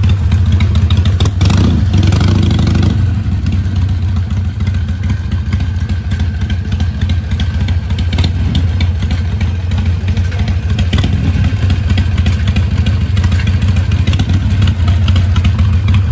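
Harley-Davidson Iron 883's air-cooled V-twin idling steadily, with a short burst of louder noise about one and a half to three seconds in.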